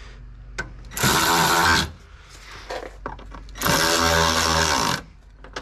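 Cordless screwdriver with a T25 Torx bit running in two bursts, about a second in and again about three and a half seconds in. Each time the small motor speeds up and winds down as it turns one of the grille screws.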